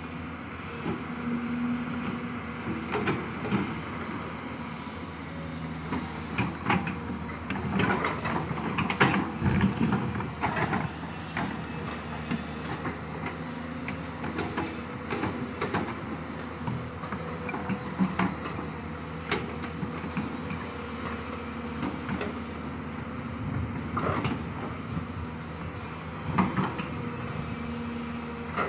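Crawler excavator's diesel engine running steadily with a faint hydraulic whine, while short knocks and clanks from the machine digging come in clusters, busiest a few seconds in and again near the end.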